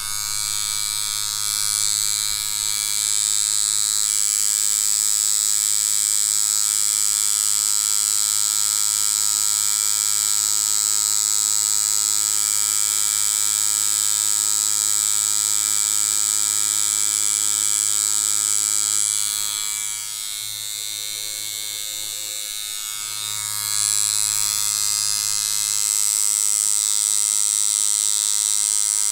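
Rotary tattoo machine set to about 7 volts, running steadily as it lines practice skin: a low hum with a high whine over it. It drops in level about twenty seconds in and comes back up a few seconds later.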